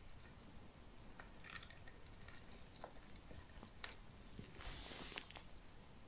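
Near silence: faint room tone with a few small clicks and a brief soft rustle about four and a half seconds in.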